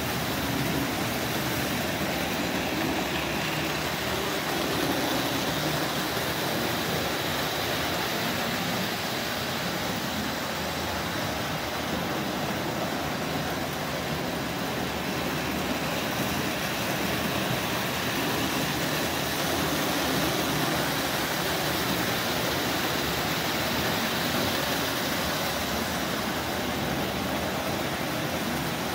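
Marx O27 tinplate toy electric train running on its metal track, a steady, even running noise with no breaks.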